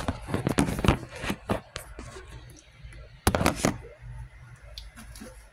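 Hard objects being handled: a run of clicks and knocks, with a louder clatter a little over three seconds in.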